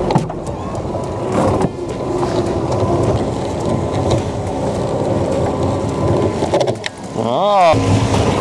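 Electric crab pot puller hauling the pot's rope up from the water, its motor running steadily over a low rumble. A short whine that rises then falls comes about seven seconds in.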